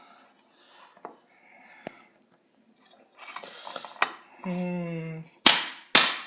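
Ceramic bowl being handled and struck, with light clinks and scraping at first, then two loud, sharp impacts with ringing near the end as it is hit hard to break it.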